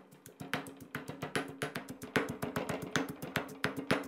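Stone pestle pounding fresh red chilies, garlic and coriander in a granite mortar into a coarse dipping-sauce paste: quick, uneven thuds, several a second.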